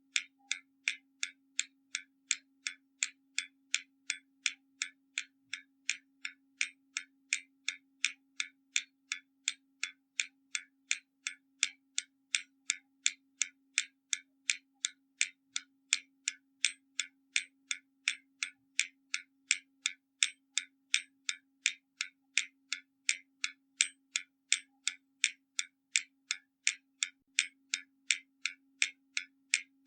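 Hermle mechanical skeleton clock ticking steadily, about two even ticks a second, as its escapement runs.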